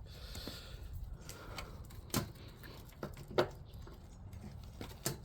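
Hand tools clicking and knocking against metal at irregular intervals, the clearest knocks about two, three and a half and five seconds in. The tools are being used to pry rusted-in sleeves out of the rubber compressor mounts of a window air conditioner.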